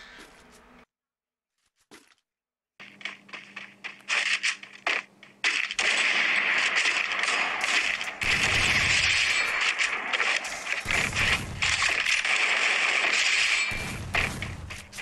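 Gunfire sound effects from a mobile shooter game: after a brief silence, rapid shots start about three seconds in and run densely, with a few deep thuds.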